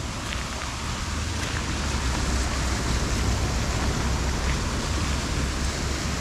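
Cars driving through a flooded road, their tyres hissing and spraying through standing water in a steady rush, mixed with wind on the microphone.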